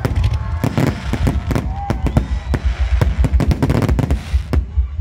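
A fireworks display: a dense, loud run of bangs and crackles from shells bursting in quick succession, over a deep rumble, thinning out near the end.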